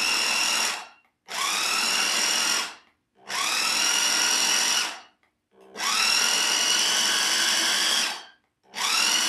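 Pampered Chef Multi-Flex's motor driving its food-processor attachment in short pulses to mix a cream cheese dip. There are five bursts of about one and a half to two and a half seconds, each spinning up with a rising whine and cutting off, with brief silent pauses between.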